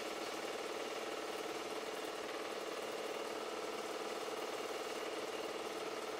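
Super 8 film projector running: a steady mechanical whir with a fast, even clatter from the film advance.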